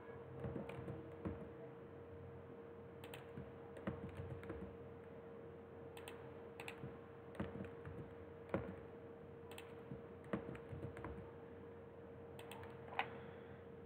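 Computer keyboard keys tapped for shortcut commands (Shift D, G, Z), clicking in short irregular clusters about once a second over a faint steady hum.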